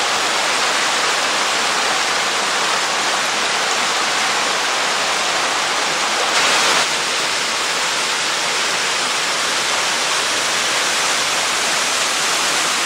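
Waterfall pouring steadily: a loud, even rush of falling water, with a brief louder swell of noise about halfway through.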